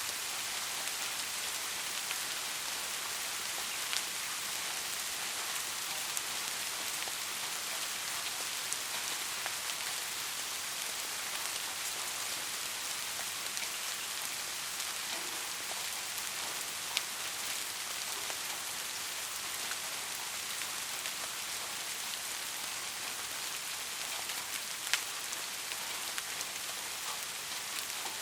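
Steady soft rain falling, an even hiss with scattered sharper ticks of single drops landing close by.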